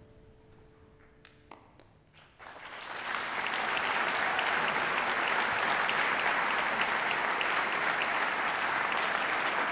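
The piano's last chord dies away into a brief hush, then the audience breaks into applause about two and a half seconds in, rising quickly and holding steady.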